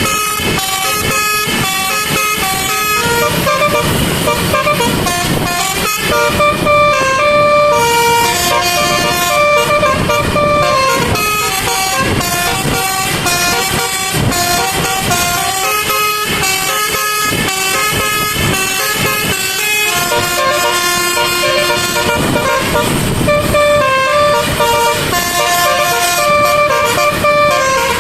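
Telolet basuri musical air horns on a truck playing a tune: a long run of clear horn notes stepping up and down in pitch, with vehicle noise underneath.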